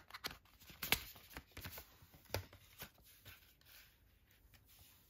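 Cardboard art-card folder being handled and laid on a wooden floor: a few sharp taps and clicks with soft rubbing and sliding. The loudest tap comes about a second in, and the handling dies away toward the end.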